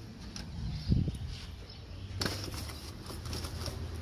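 A door being opened, followed by a steady low rumble on the phone's microphone, with a thump about a second in and a sharp click a little after two seconds.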